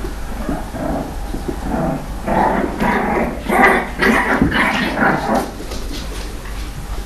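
Dogs growling and barking, with a run of about six short barks between two and five and a half seconds in.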